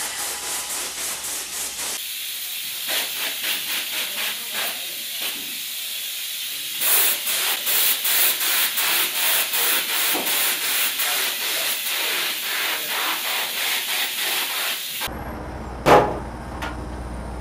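Spray polyurethane foam gun hissing as foam is sprayed onto styrofoam insulation board, pulsing a couple of times a second with the sweep of the gun. The spraying stops suddenly about fifteen seconds in, leaving a low hum.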